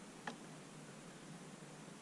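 Faint steady hiss of room tone, with one small click about a quarter of a second in.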